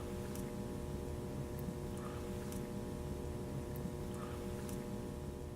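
Steady low background hum with a few faint clicks scattered through it.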